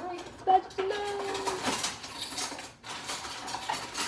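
Metal ladle clinking and scraping against the inside of a stainless steel pot as cake batter is scooped, with repeated short knocks; the sharpest knock comes about half a second in.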